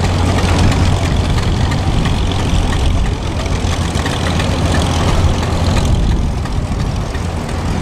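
Vintage farm tractor engines running throttled down at low revs as the tractors creep along in low gear, a steady low-pitched rumble.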